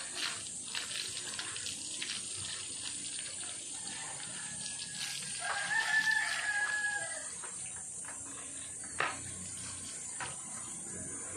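A rooster crowing once, a long crow a little over five seconds in, over a steady high hiss. Light wiping and splashing as a car is washed by hand, and a single sharp knock near nine seconds.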